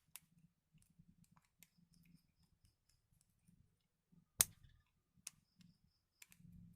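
Faint scattered clicks and taps from a spinning fishing reel being handled, with one sharp click about four and a half seconds in.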